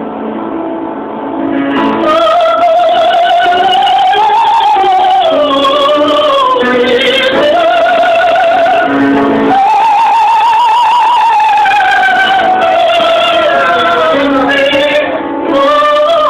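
Operatic female voice singing long, high held notes with wide vibrato, accompanied by an upright piano. The piano plays alone for about the first two seconds before the voice comes in.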